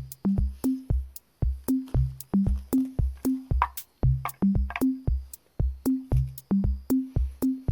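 Background music: an electronic beat of drum-machine hits with short bass notes, starting abruptly with a steady rhythm of about three to four notes a second.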